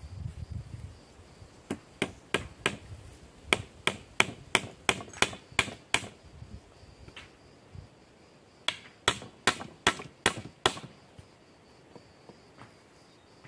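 Hand hammer striking at the joint of a branch and a log, as if nailing them together: a run of about a dozen sharp blows, a pause of a couple of seconds, then about six more quick blows.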